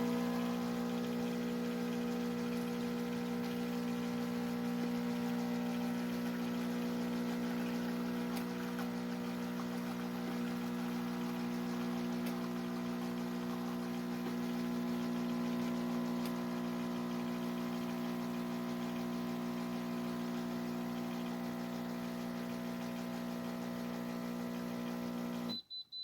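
Espresso machine's pump running with a steady hum while pulling a shot, then cutting off suddenly near the end, followed by short high beeps from the machine.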